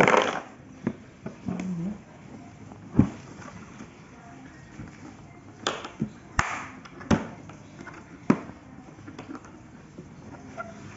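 Hard plastic tool case being handled and its plastic latches unclipped: a string of sharp clicks and knocks, about seven, spread a second or so apart.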